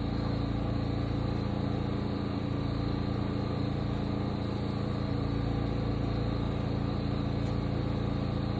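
Sawmill engine idling steadily with an even low hum.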